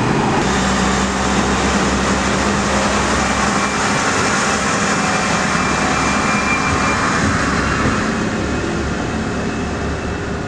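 Railway train running, a steady, dense noise with a low hum held underneath, easing off slightly near the end.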